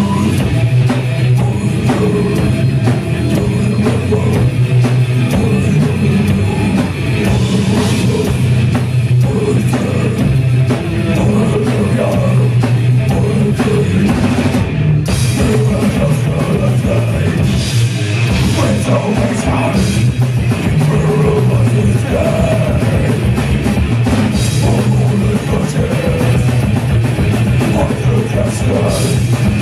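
Live heavy metal band playing loud and continuously: distorted electric guitars over bass and fast, dense drumming on a drum kit, heard from the audience.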